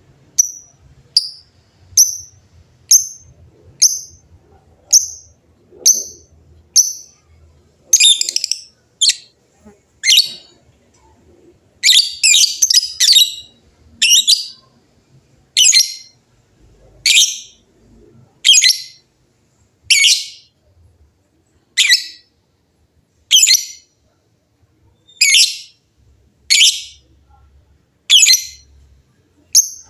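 Lovebirds calling: a quick, evenly spaced series of short high chirps for the first several seconds, then louder, harsher shrill calls about once a second, bunched more closely around the middle.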